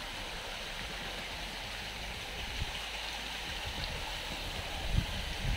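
Steady splashing and hiss of a water fountain.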